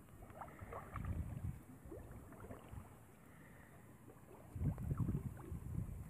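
Shallow water sloshing and lapping as a cast net is handled and pulled through it, with small drips and trickles, and wind buffeting the microphone in uneven gusts, strongest about a second in and again near the end.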